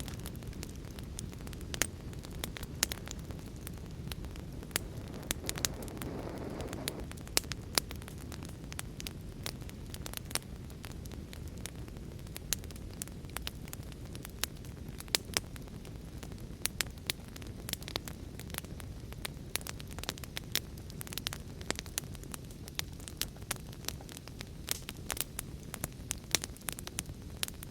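Fire crackling: irregular sharp pops and snaps over a steady low rumble, with a brief swell of hissing about six seconds in.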